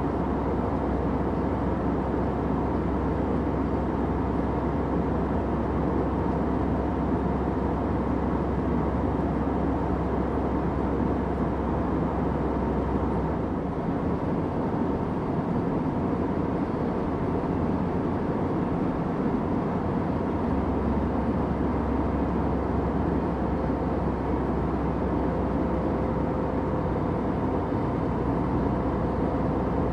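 Airplane cabin noise: a steady, even rush with a faint hum running through it. The deepest part of the rumble drops away for several seconds about halfway through, then comes back.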